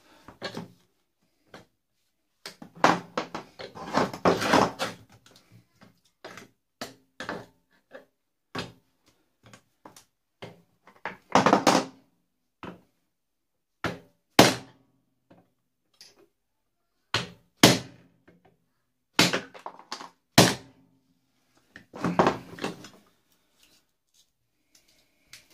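Hammer blows on a cold chisel driven along the weld of a microwave oven transformer's steel core, to split off the steel: sharp metal strikes, single ones a few seconds apart between two bouts of quicker clattering.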